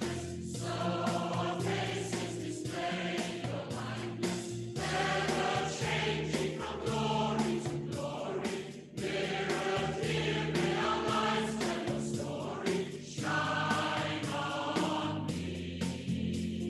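A choir singing a hymn with instrumental accompaniment that holds steady low notes under the voices.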